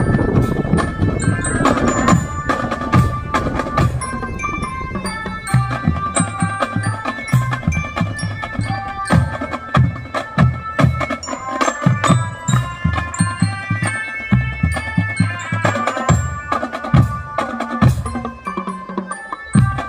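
Non-brass marching drum band playing: a steady rhythm of drum strokes under a melody of sustained pitched notes from the band's melodic section, with no brass.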